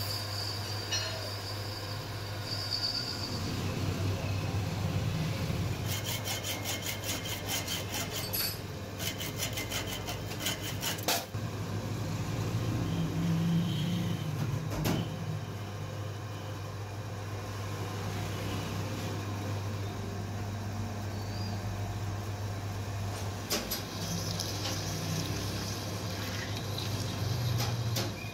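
Metal lathe running with a steady motor hum while cutting and drilling a steel rod, with scraping and metallic clinks. About six seconds in, a rapid ticking comes and goes for several seconds.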